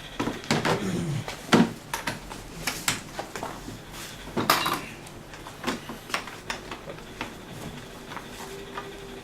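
Metal hardware being handled on a hard surface: clinks, knocks and short scrapes. They are busiest in the first couple of seconds, with another loud knock about four and a half seconds in, then fewer and fainter.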